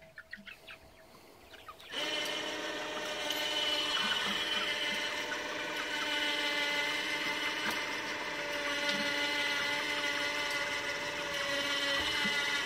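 ATV's electric winch motor switches on about two seconds in and runs with a steady whine. It is winding in cable under load, dragging a heavy, wet broiler pen across the grass.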